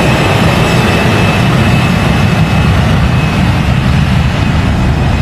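Jet airplane engine sound effect: a loud steady rumble with a high whine held level.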